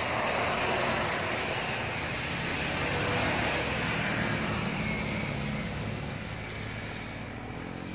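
Intercity coach driving past on a wet road: engine running and tyres hissing on the wet asphalt, fading over the last couple of seconds as it moves away.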